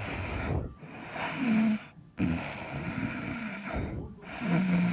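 Recorded abnormal lung sounds: breaths about every two seconds, several of them carrying a low-pitched musical tone, the continuous adventitious sound heard over diseased airways.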